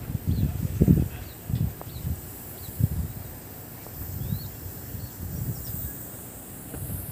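Wind buffeting a phone's microphone in irregular low gusts, strongest in the first second or so. Faint short bird chirps come through now and then.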